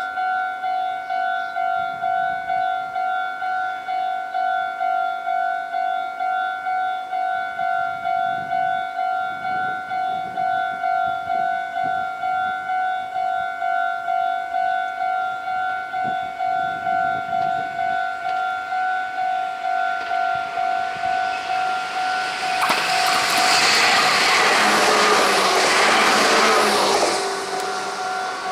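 A level-crossing alarm rings with an even beat, about one and a half strikes a second. Late on, two coupled Meitetsu 1800 series electric trains pass close by, a loud rush of wheel and motor noise lasting about five seconds that drowns out the alarm.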